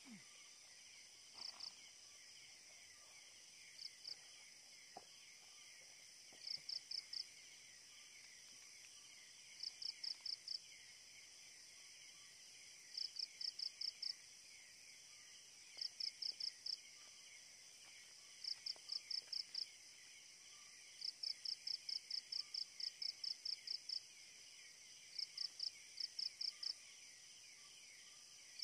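Night forest chorus: a steady high buzz of insects, with a repeating call of short, high chirps over it. The chirps come in groups of two to a dozen at about four a second, every three seconds or so.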